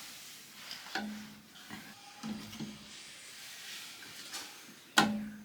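Scattered knocks and clicks of household handling, the loudest a sharp knock near the end and another about a second in, the bigger ones followed by a short low ring.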